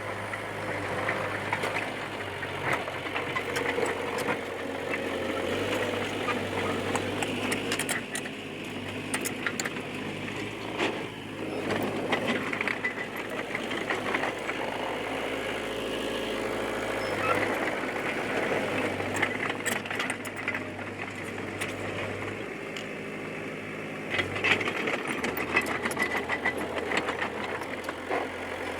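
Diesel engine of a D20P bulldozer running, its engine speed shifting up and down several times under load, with scattered clanks and clicks from the machine working.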